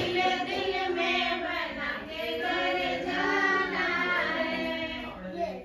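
Several women singing a Rajasthani wedding folk song together, breaking off near the end.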